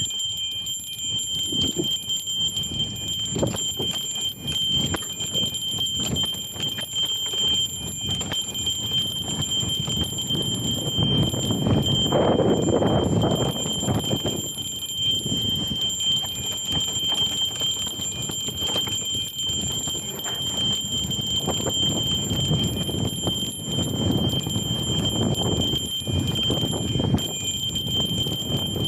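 Hardtail mountain bike ridden over rough ground: a continuous rumble with irregular rattling and knocking from the chain and frame, growing louder for a couple of seconds near the middle and again near the end.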